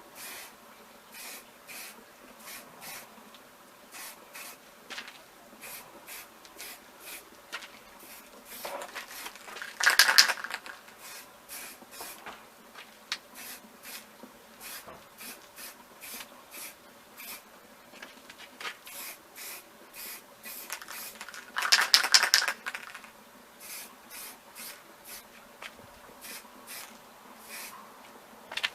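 Aerosol spray paint can spraying in two short bursts, about 10 and 22 seconds in, while an old fishing reel is painted. Faint short scratchy strokes, one or two a second, come between the bursts.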